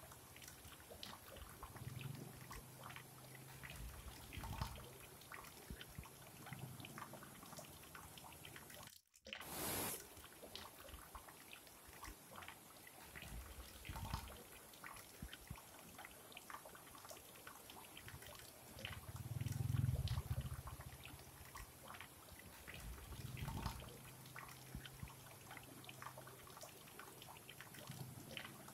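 Small rocky stream running over low cascades: a faint, even rush of water with many small splashes and drips. Low rumbles come and go, the strongest about two-thirds of the way through, and the sound cuts out briefly about nine seconds in.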